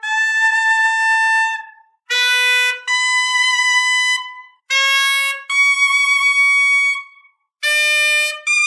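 Suona playing a series of lower-register notes, each sounded briefly and then overblown to the octave above and held for a second or two. There are short breaks between the pairs, and each pair starts a step higher than the one before.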